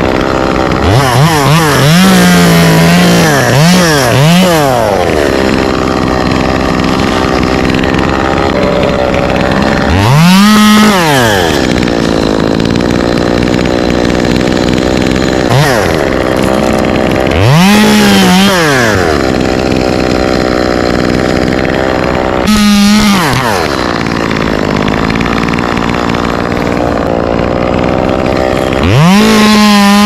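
Two-stroke chainsaw idling between short bursts of full throttle. It revs up and drops back to idle six times; the first rev is held for about a second and followed by two quick blips, and a shorter blip comes in the middle.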